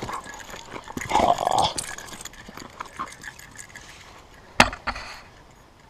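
Vizsla mouthing at a hand and licking the bug spray on it: dog mouth and breathing sounds, with a short rough burst about a second in and a sharp click about four and a half seconds in.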